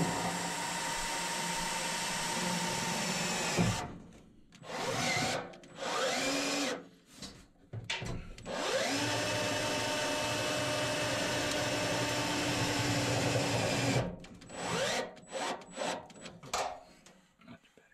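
Cordless drill-driver working screws in a furnace's sheet-metal blower housing. It runs in two long steady pulls of several seconds each, separated and followed by short trigger bursts.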